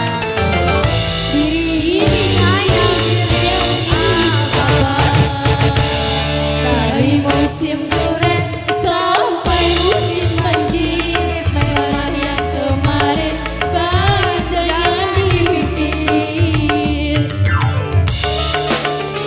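Dangdut music played by a live band: a steady hand-drum and bass beat under a bending, gliding melody line.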